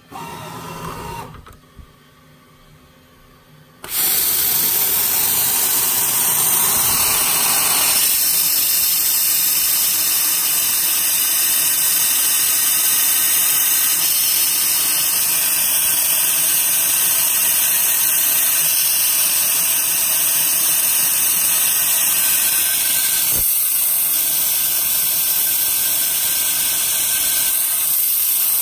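Hardinge CNC lathe running its cycle to turn a tenon on an air-rifle barrel. After a short burst of machine noise about a second in, a loud, steady hiss of coolant spray starts abruptly about four seconds in and carries on over the running spindle.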